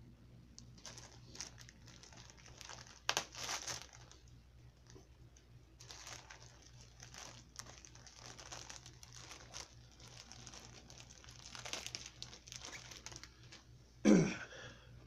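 Plastic packaging crinkling and rustling in irregular bursts, with scattered clicks, as a product is unwrapped by hand. A short, loud burst comes near the end.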